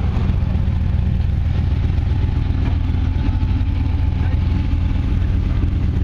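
Off-road rock crawler's engine running steadily at low revs, a low, even rumble with no clear revving.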